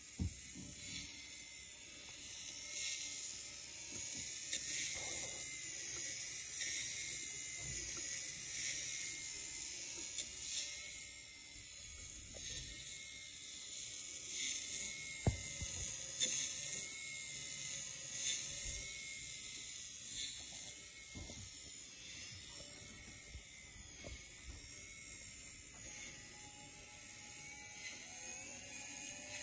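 Small geared electric motor spinning the bussard collector domes of a lit Star Trek Enterprise model kit, giving a steady light mechanical whirr and ticking.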